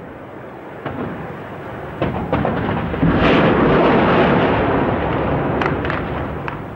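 A tank hit and erupting in fire: a loud rushing blast starts suddenly about three seconds in and slowly dies away. A few sharp cracks of gunfire come before it and again near the end.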